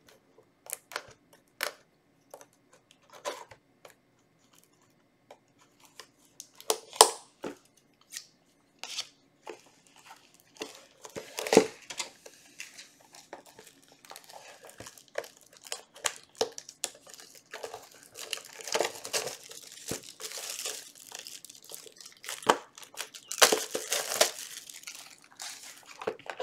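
Trading card packaging being torn open and crinkled by hand: scattered handling clicks and rustles at first, then dense crinkling and tearing, loudest in the second half.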